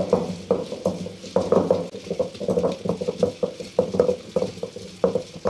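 Heavy stone pestle (rubbu gunda) pounding and grinding in a stone mortar, crushing green chillies to a paste: a quick, uneven run of dull stone-on-stone knocks, about three or four a second.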